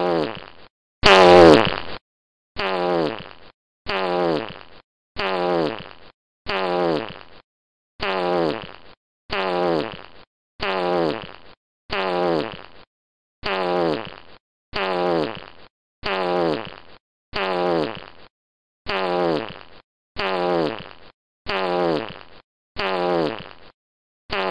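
A short fart sound effect played over and over, about one every 1.3 seconds. Each one is a rasp that falls in pitch and cuts off into silence. One louder, sharper fart comes about a second in.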